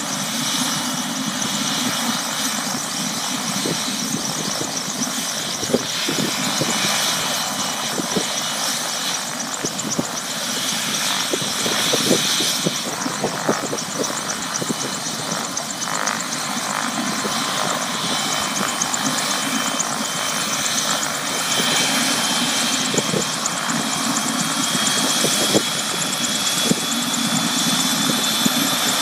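Small turbine helicopter running on the ground with its rotor turning: a steady engine whine and rotor noise, the whine rising slowly in pitch over the last several seconds as it runs up.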